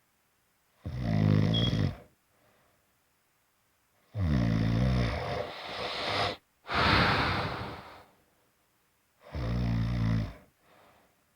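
Snoring: three low, buzzing snores on the in-breath, a few seconds apart, with a long breathy exhale after the second one.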